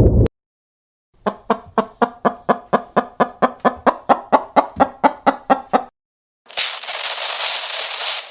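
An animal calling in a fast, even series of short pitched calls, about four a second for nearly five seconds. After a short pause comes a loud, steady hiss lasting about two seconds.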